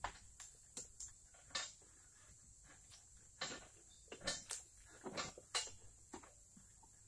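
Faint, irregular knocks and clatters, about a dozen short strokes spread unevenly, over a faint steady high-pitched whine.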